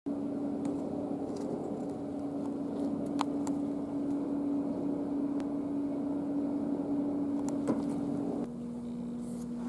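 A steady mechanical hum over room noise, with a few faint clicks; the hum steps slightly lower in pitch and level near the end.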